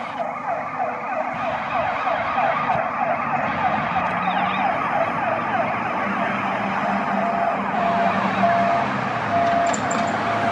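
Fire truck siren on a fast yelp, rising and falling several times a second. A run of short even-pitched beeps sounds over it in the last few seconds.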